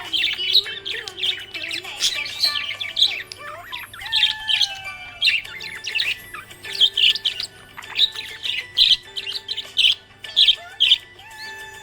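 Budgerigar chirping rapidly: a busy run of short, high chirps and quick warbling notes with brief pauses between phrases.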